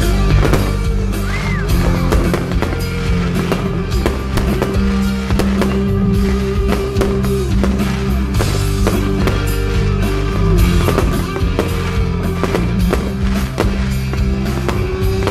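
Music from a fireworks show, with firework shells bursting throughout in many sharp bangs and crackles.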